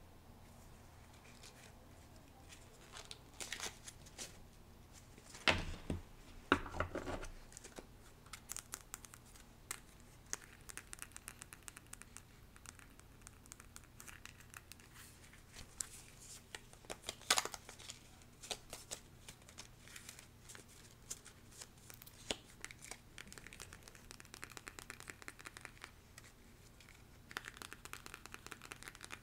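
Long fingernails tapping and scratching on stiff paper cards and card packaging: a rapid, uneven stream of light clicks, with a few louder knocks about five to seven seconds in and again near the middle.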